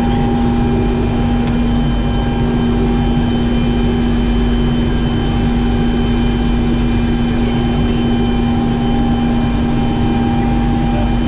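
Helicopter in flight: its turbine engine and rotors running steadily, a dense low drone with a strong steady hum and thin, steady high whining tones above it.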